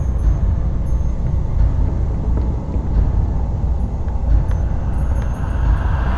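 Steady low rumble of a dark horror ambience bed, with a few faint ticks over it.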